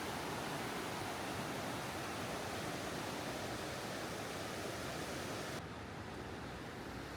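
Steady outdoor rushing noise with no distinct events. About five and a half seconds in, the hiss drops suddenly and the sound becomes duller and a little quieter.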